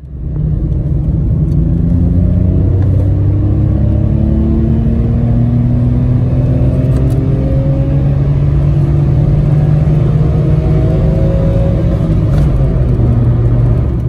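Citroen C1 engine heard from inside the cabin, pulling uphill under load with its pitch rising slowly as the car gains speed. The exhaust still has its catalytic converter fitted.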